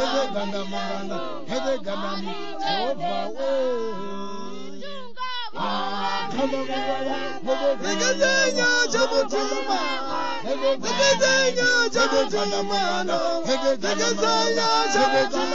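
Music with a group of voices singing together in a choral, chant-like style, with a brief break about five seconds in.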